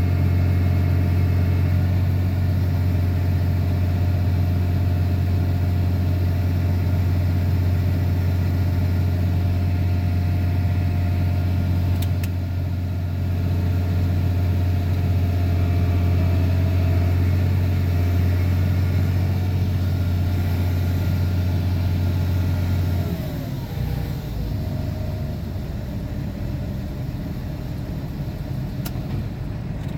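Diesel engine of a John Deere 8400 tractor, heard from inside the cab, running at a steady high speed. About three-quarters of the way through, it is throttled down and its pitch falls.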